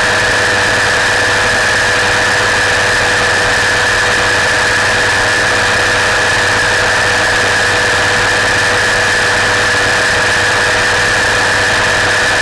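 Gyroplane in flight: its engine and propeller run with a steady drone at a constant pitch, mixed with rushing wind noise on the externally mounted microphone.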